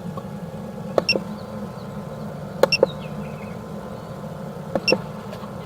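A steady low hum with a short double beep-click repeating about every two seconds, typical of a pipe locator's receiver pinpointing a sewer camera's sonde.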